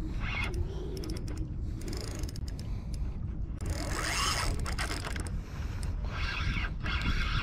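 Spinning fishing reel ratcheting in several bursts of rapid clicking as a hooked fish is reeled in, over a steady low rumble.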